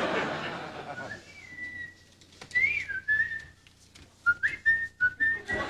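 Studio audience laughter dies away. Then a person whistles a short, cheerful tune in clear single notes with a few quick slides between them.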